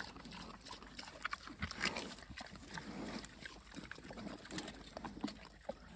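Pigs chewing raw yacon tubers: a run of irregular, crisp crunches.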